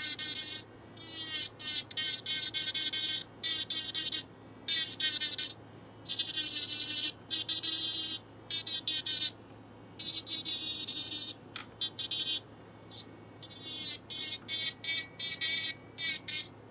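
Serio electric nail drill with a diamond bit, its high-pitched whine coming and going in many short bursts, each under about a second and a half, as the bit is worked along a toenail's cuticle.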